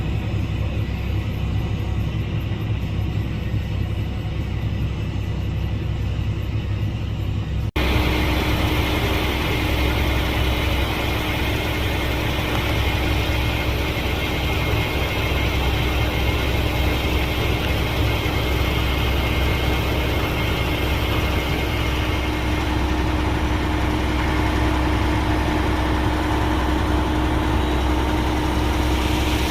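Heavy farm machinery engine running steadily. About eight seconds in, it cuts abruptly to a brighter, louder engine sound carrying a steady whine.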